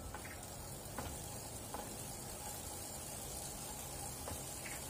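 Hoverboard-motor conversion on a bicycle running, its rear wheel and chain spinning with a steady whirr and faint hum, plus a few light clicks as the pedal crank is turned by hand. The motor runs because the pedal sensor, a bike-computer sensor with two magnets on the crank, picks up the crank turning.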